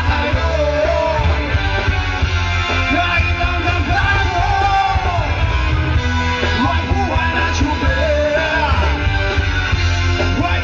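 Rock music with a singing voice over a loud, steady band backing.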